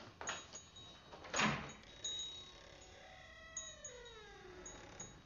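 Eerie horror-film sound design: faint high chime-like ringing with a couple of soft knocks, the loudest about a second and a half in. About three seconds in, a slow sound slides down in pitch.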